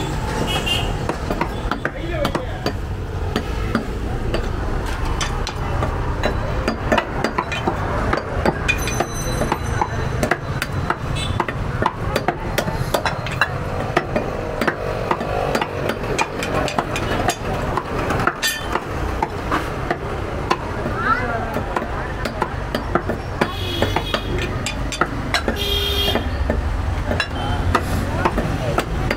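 Butcher's knife chopping goat meat on a wooden tree-stump block: repeated sharp knocks of the blade into the wood at an uneven pace.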